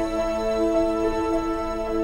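Slow, soft instrumental background music with long held notes.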